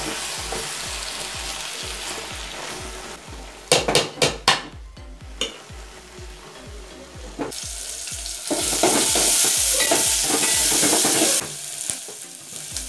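A metal spoon stirring a pot of sizzling matoke (green banana stew), with a few quick knocks of the spoon against the pot about four seconds in. The sizzling gets louder and steadier for a few seconds in the second half.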